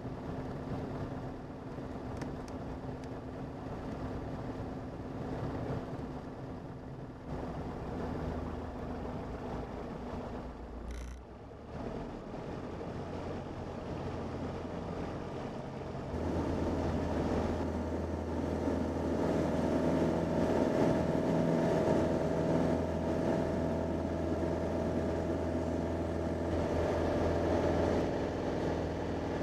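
Single-engine light aircraft's piston engine and propeller heard from inside the cockpit. It runs at low taxiing power, then steps up to a louder, steady high-power note from about sixteen seconds in.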